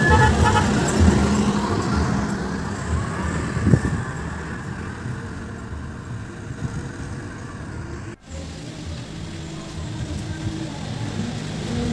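Engine and road noise of an odong-odong tour vehicle passing close by and fading as it drives away, with a short thump about four seconds in. The sound drops out for a moment about eight seconds in, then another vehicle's engine grows louder near the end.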